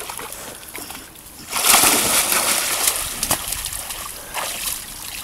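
A dog splashing and wading through a shallow pond, churning the water, with the loudest burst of splashing from about a second and a half in.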